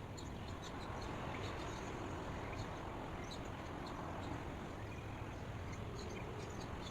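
Outdoor ambience: a steady low rumble and hiss, with short, high bird chirps scattered throughout.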